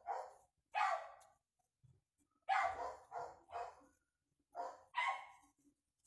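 A dog barking in the background: short, sharp barks in several bouts of one to three.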